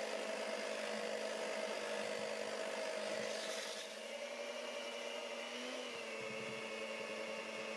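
Electric hand mixer with dough hooks running steadily as it kneads bread dough, a constant motor whine. Its pitch shifts slightly a few times in the second half.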